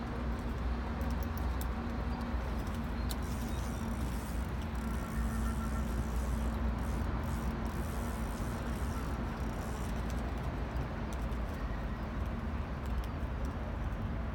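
Steady low outdoor rumble with a faint held hum, and a few faint ticks.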